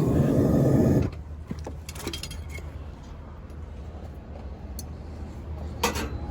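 A melting furnace's burner runs loudly, then shuts off suddenly about a second in. After that come scattered light metallic clinks and scrapes of tools and crucible being handled, with a couple of sharper knocks near the end.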